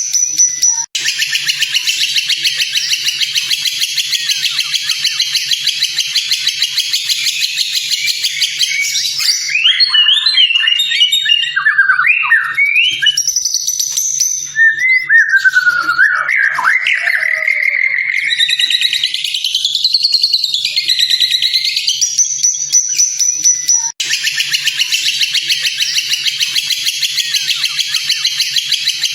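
White-rumped shama (murai batu) song played as a training recording: a fast, dense buzzing trill, then a run of varied whistled phrases that glide up and down, then the dense trill again. The sound breaks off abruptly about a second in and again near the end, where the recording is spliced.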